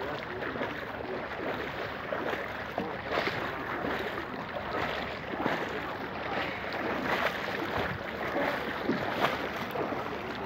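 Shin-deep floodwater splashing and sloshing around legs as people wade through it, an unbroken run of small irregular splashes.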